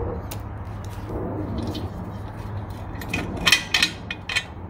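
An Allen key and metal parts clinking and clicking against a motorcycle's metal fairing stay as hands work at it, with a few louder sharp clicks about three and a half to four seconds in. A steady low hum runs underneath.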